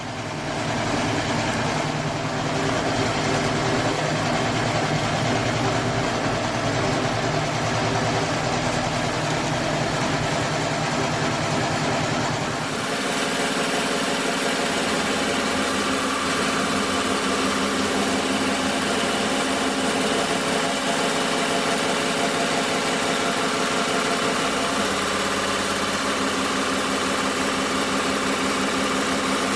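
Twelve-needle embroidery machine running steadily, stitching an outline around the whole design through cork fabric. The sound shifts in tone about thirteen seconds in.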